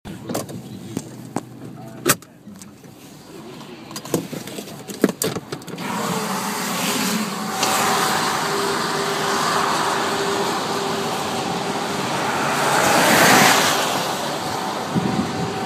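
Storm heard from inside a parked car: a few sharp knocks and handling bumps, then a loud rushing noise of wind and rain on the car that swells to a peak and eases off.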